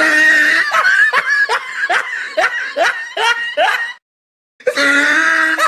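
High-pitched laughter, a quick run of ha-ha bursts at about three or four a second. It cuts off suddenly about four seconds in and starts again after half a second of silence.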